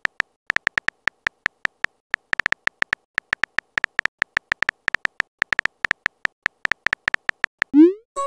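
Phone keyboard typing sound effect: a quick, irregular run of short tapping clicks, each with a brief beep, as a text message is typed. Just before the end a rising swoosh sounds as the message is sent.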